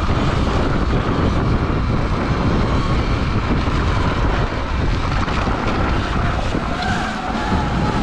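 Electric dirt bike ridden fast along a dirt trail: a thin motor whine that shifts in pitch with the throttle, dipping and then rising again near the end, over heavy wind buffeting on the microphone and tyre rumble.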